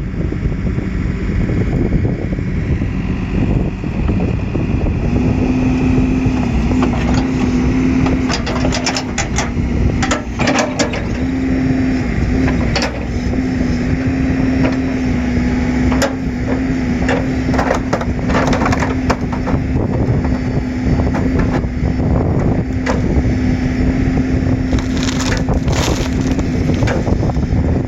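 A heavy machine's engine running steadily while a scrap car is torn apart, with repeated cracks and snaps of crunching sheet metal, bunched in the middle and again near the end. A steady hum joins the engine noise about five seconds in.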